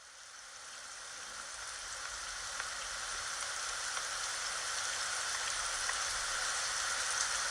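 Rain falling, a steady hiss that fades in and swells over the first few seconds, with a few faint drop ticks.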